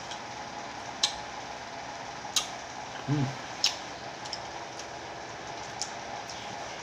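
Eating raw kamias (bilimbi) fruit: a few sharp clicks of biting and chewing about a second apart, with a brief vocal hum just after three seconds, over a steady background hum.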